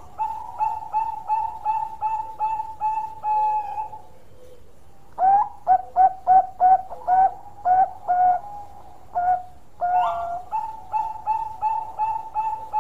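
Zebra dove of the Bangkok singing strain (perkutut Bangkok) singing its long cooing song: three phrases of quick, even coos, roughly three a second. The first and last phrases end on a longer held note.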